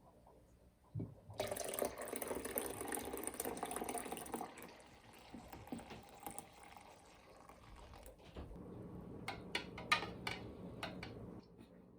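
Liquid being poured into a cup, starting suddenly and running strongest for about three seconds, then going on more softly. A few sharp clicks sound near the end.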